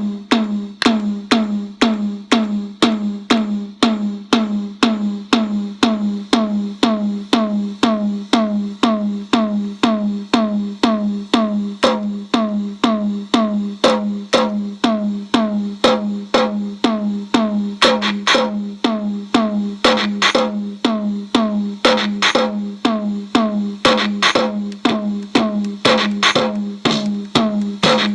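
Circuit-bent Korg DDD-1 drum machine playing a steady, repeating pattern of pitched drum hits, about two a second, each dropping in pitch onto a low ringing tone, its digital signals modulated by a patched-in circuit-bending effect. Sharper, brighter clicks join in about eighteen seconds in.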